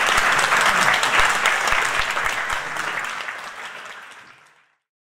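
Audience applauding, a dense patter of many hands clapping that fades away from about three seconds in until it is gone.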